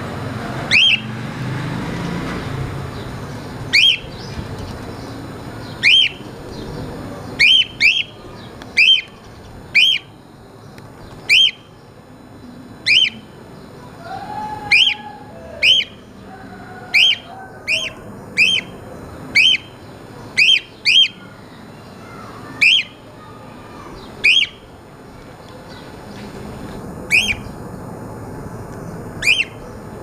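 Cream cockatiel repeating a short, sharp whistled call that falls quickly in pitch, about one every second or two, some twenty calls in all.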